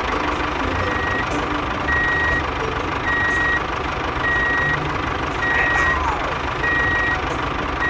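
Vehicle reversing alarm beeping at an even pace, about one short high beep a second, over the steady noise of a running truck engine.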